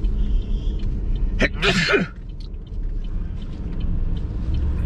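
A man sneezes loudly once, about a second and a half in, over the steady rumble of the car inside the cabin.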